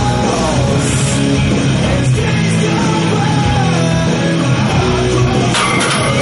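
Loud rock music with electric guitar and singing.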